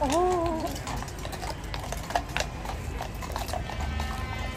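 A horse's hooves clip-clopping on hard ground in a few irregular strikes, the sharpest about two and a half seconds in. A brief wavering vocal sound comes at the very start.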